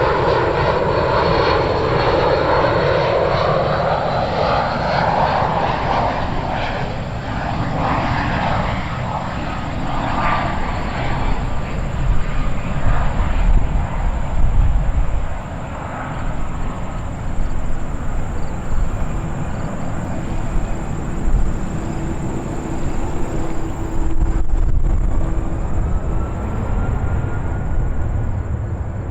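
Jet airliner engines passing by, their whine gliding down in pitch over the first several seconds and then easing into a steadier rumble, with fainter engine tones later on. A heavy low rumble underneath sounds like wind buffeting the microphone.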